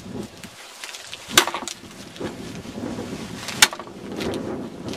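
Cold Steel Trail Boss axe chopping into a 3-inch dead branch: two sharp chops about two seconds apart, with a third starting right at the end.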